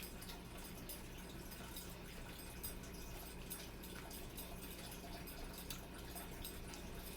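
Faint chewing with small wet mouth clicks over a steady low hum.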